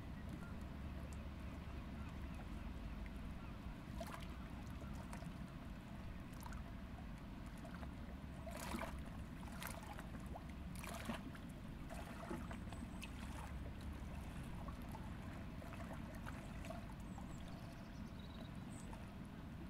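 River water lapping gently at a rocky bank over a low steady rumble, with a few soft splashes and clicks clustered around the middle.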